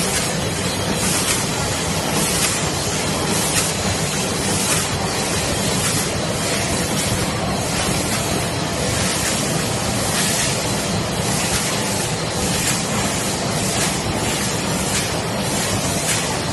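Steady din of a snack packing line running, a bucket-elevator conveyor and automatic pouch packing machine, with a hissing swish repeating roughly once a second.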